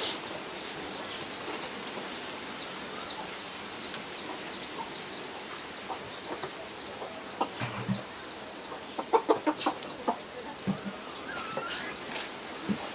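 A bird cheeping over and over in short falling notes, about three a second, with a few sharp knocks and clatters in the second half.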